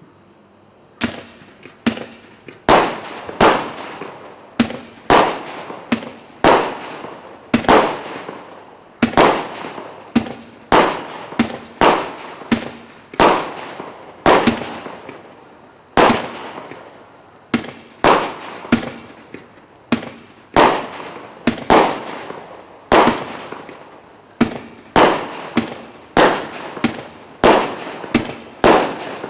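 Standard Fireworks 'Moonlight Magic' multi-shot cake firing a continuous barrage, starting about a second in: a sharp report roughly every 0.7 s, each dying away before the next.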